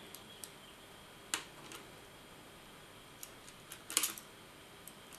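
Scattered light plastic clicks and taps as a laptop screen's plastic back case is fitted and pressed into place. One sharp click comes just over a second in, and a quick cluster of louder clicks about four seconds in.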